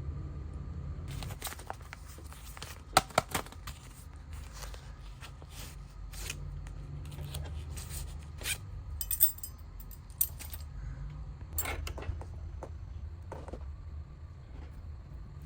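Hand tools and small parts working on a Bluetooth speaker's casing during teardown: scattered clicks, taps and scrapes, the sharpest cluster about three seconds in and more between eight and twelve seconds, over a steady low hum.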